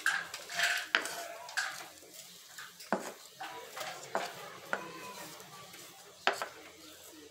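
Wooden pestle knocking and scraping on a comal griddle as toasted mamey seeds and cacao are crushed flat: irregular sharp knocks a second or two apart, with scraping between.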